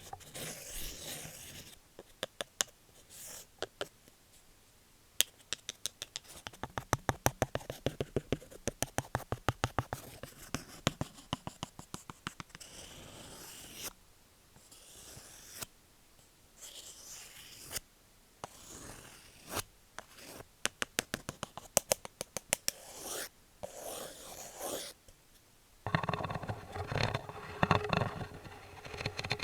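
Wooden objects scratched, scraped and tapped, with a run of quick taps several a second.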